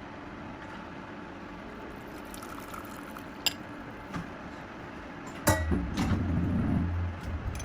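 Kitchen handling of liquid and glassware: a few light clinks, then a louder knock about two-thirds of the way in, followed by liquid being poured or filled into a glass container.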